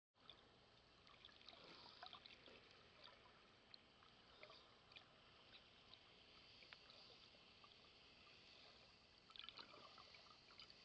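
Faint underwater ambience picked up by a submerged camera: a low steady hiss with scattered small clicks and crackles, and a brief cluster of louder crackles about nine seconds in.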